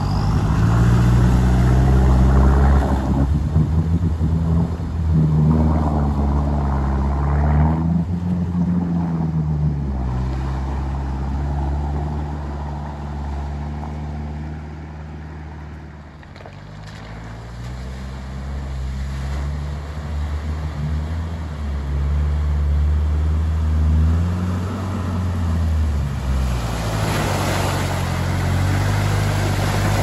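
Toyota Prado 90 Series 4WD crossing a deep river, its engine revving up and down as water splashes around it. The sound fades as the vehicle reaches the far bank about halfway through, then grows louder again as it drives back through, with heavy splashing near the end.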